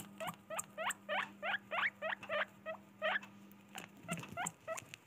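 Guinea pig squeaking: a rapid series of short squeaks, each rising sharply in pitch, about four a second, thinning out to a few scattered squeaks after about three seconds.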